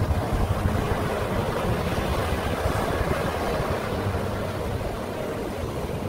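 Ocean surf breaking and washing up a sandy beach, a steady rush of water, with wind buffeting the microphone.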